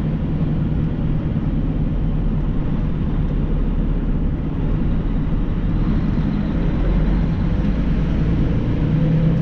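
Steady low drone of a vehicle under way: engine hum and road noise.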